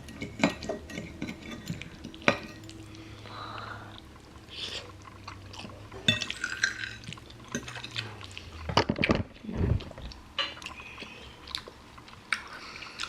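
Utensils clicking and scraping against a bowl again and again as saucy black bean noodles are stirred and eaten.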